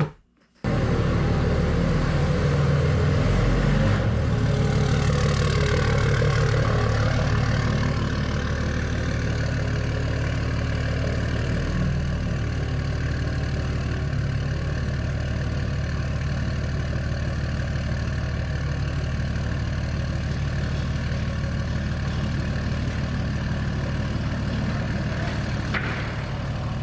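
Motor vehicle engine running steadily, with a low hum and even noise, starting suddenly about half a second in.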